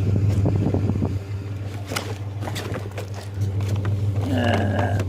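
Truck engine idling steadily, with scattered knocks and rattles of items being handled over the first few seconds.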